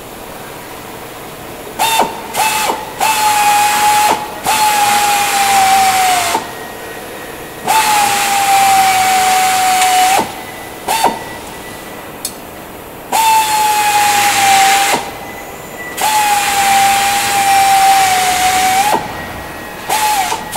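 Air drill drilling out aircraft rivets: about four runs of two to four seconds, with short trigger blips between, each a high whine over a rush of air hiss that sags slightly in pitch as the bit bites.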